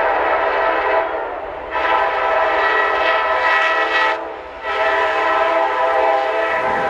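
Diesel freight locomotive's multi-tone air horn sounding for a grade crossing: a long blast that ends about a second in, then two more long blasts with short breaks between them. A low rumble comes up near the end.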